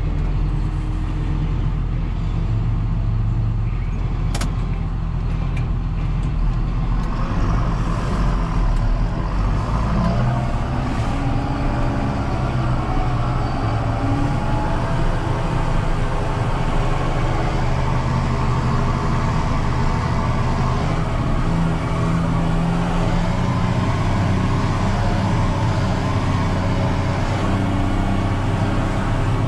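John Deere 6930 tractor's six-cylinder diesel engine running steadily, with a shift in engine pitch around eight to ten seconds in and a single sharp click about four seconds in.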